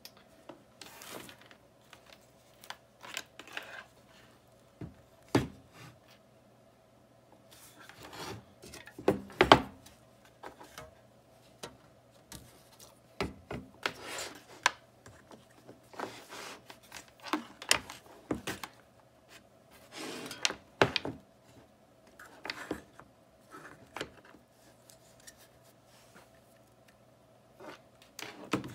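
ZTW Beast Pro 300 A ESC, a finned metal case with a fan and thick power leads, being handled and set on a tabletop: irregular rubbing, clicks and knocks, over a faint steady hum.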